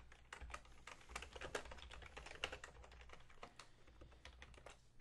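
Faint typing on a computer keyboard: a quick, uneven run of key clicks.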